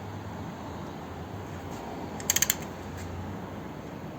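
Ratchet wrench clicking in one quick run of about half a dozen clicks about two seconds in, as the engine's crankshaft is turned over by hand, over a low steady hum.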